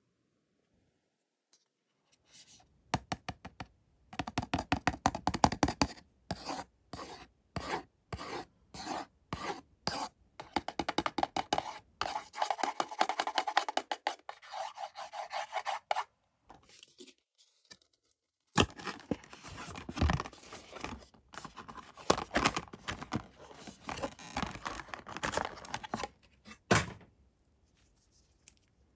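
Blind-box packaging being handled and opened: bursts of quick rubbing, rasping and tearing strokes, with short pauses between them.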